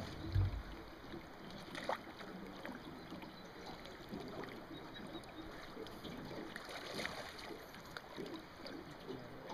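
Steady rush of river water around a boat, with a low thump about half a second in and a sharp click near two seconds.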